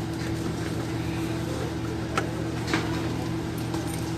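Steady engine-like motor hum, with a few faint clicks.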